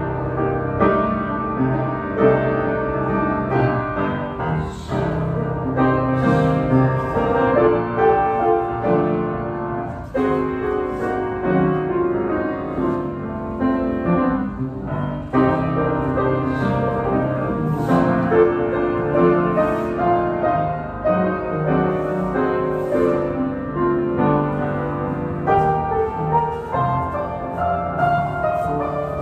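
Piano playing a continuous dance-class accompaniment, a steady stream of chords and melody notes.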